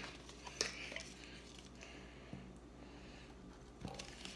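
Faint handling noise from a plastic contact lens solution bottle being tipped and squeezed over a tub of slime, with one small click about half a second in.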